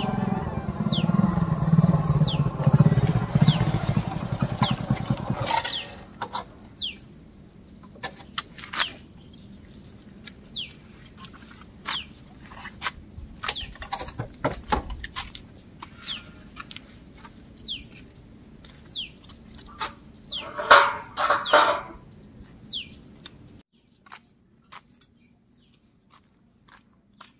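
A motorcycle engine running as the bike rides up, then switched off about six seconds in; scattered clicks and knocks follow as the bike is parked. A bird repeats a short falling whistle throughout, and a brief louder burst comes near the end.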